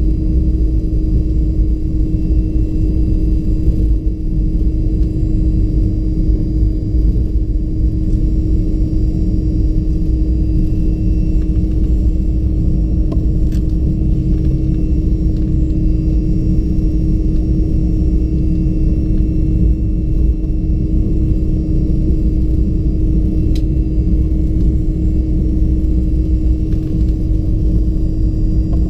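Cabin sound of a Fokker 70 taxiing, heard beside its rear-mounted Rolls-Royce Tay turbofan at idle. A steady engine hum holds one pitch over a constant low rumble.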